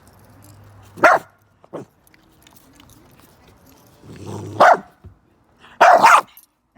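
A dog barking: three loud single barks, about a second in, at around four and a half seconds, and near the end, with a softer one between the first two.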